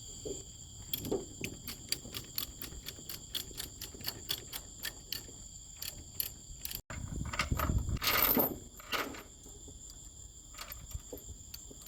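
Ratchet tie-down strap being cranked tight, a steady run of sharp clicks about three to four a second, with insects trilling steadily behind. After a cut, a louder brief noisy rustle comes about 8 seconds in.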